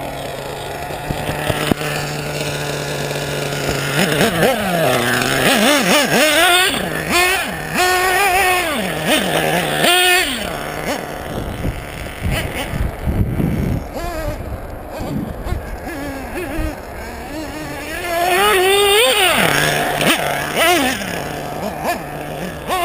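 Nitro engine (LRP ZR.30) of a Team Associated RC8 1/8-scale buggy, geared with an 18-tooth clutch bell. It idles steadily for the first few seconds, then revs up and down again and again, its pitch rising and falling as the buggy accelerates and slows. There is a spell of low rumble with fewer revs near the middle.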